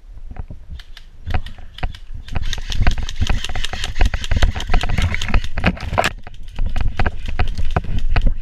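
Fast, irregular footsteps crashing through leaf litter and undergrowth, with a heavy rumble of wind and handling noise on the body-worn camera's microphone. The sound gets louder about a second in.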